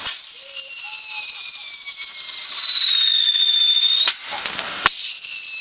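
Whistling firework giving a loud, shrill whistle that slowly falls in pitch for about four seconds, breaks off with a click, then a second whistle starts high and begins falling again near the end.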